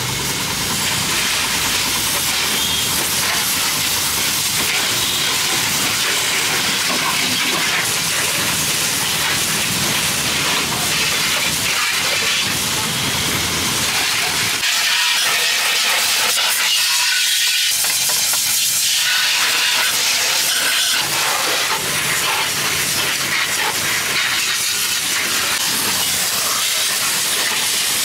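High-pressure washer jet spraying water onto a scooter's wheels and bodywork: a loud, steady hiss of spray and spatter.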